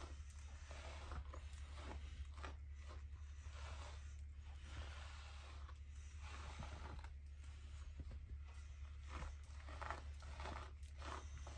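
Irregular scratching and rustling of a long-haired Chinese crested dog's coat against a shaggy blanket and cushion as it is scratched and rubs itself, over a steady low hum.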